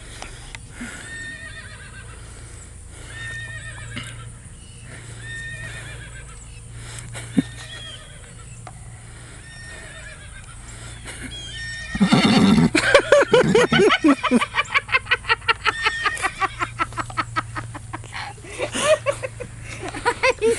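A phone ringtone of a horse whinny plays faintly and repeatedly. About twelve seconds in, a horse answers with a loud, shaking whinny lasting several seconds, her mouth full of apple. She whinnies again shortly before the end.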